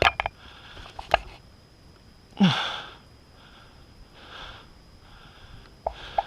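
Close breathing and sniffing of a person, with a few sharp clicks and one louder noisy puff about two and a half seconds in.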